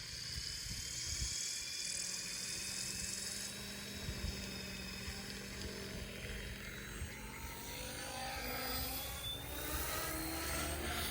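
Protos 380 electric RC helicopter running, its motor and rotor head whining at shifting pitch, the whine rising over the last few seconds.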